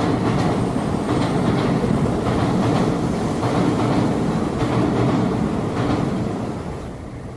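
Subway train running on the rails: a loud, steady rumble with rattling of the wheels, easing somewhat near the end.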